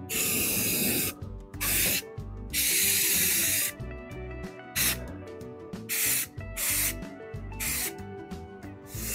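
Aerosol can of brown satin spray paint hissing in a string of bursts, about seven of them. Two are about a second long and the rest are short puffs.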